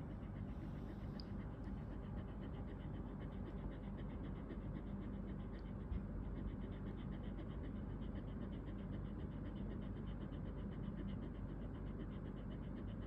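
A fat dog panting heavily, fast and steady, several quick breaths a second without a break.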